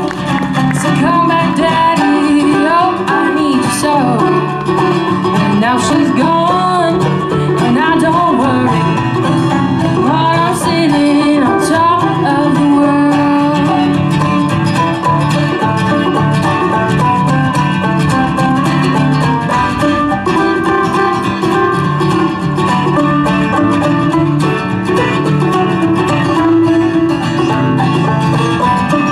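Live acoustic bluegrass band playing a fast tune, with banjo picking over guitar.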